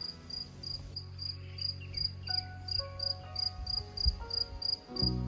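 Soft background music of slow held notes over a bass line, with a high cricket-like chirp repeating evenly nearly three times a second; the chord and bass change about five seconds in.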